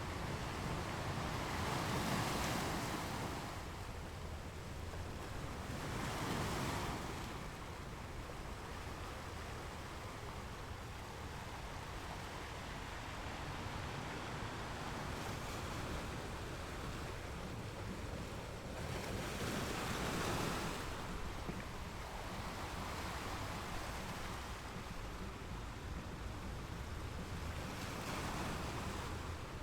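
Ocean waves breaking and washing up a beach: a steady surf hiss that swells four times as waves come in.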